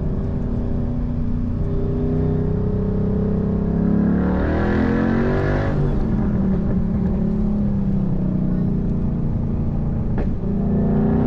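2012 Ford Mustang Boss 302's 5.0-litre V8 running under steady load, then revving up hard about four seconds in, its pitch climbing for about two seconds before dropping back to a steady pull.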